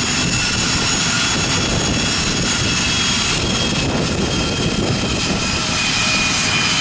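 Business jet's rear-mounted turbofan engine running at idle: a loud, steady rushing noise with a high, steady whine on top.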